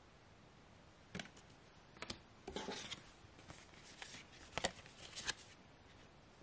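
Stiff printed art cards being handled and swapped in the hand: a string of sharp card clicks and slaps starting about a second in, with a short rustle of cards sliding past each other near the middle.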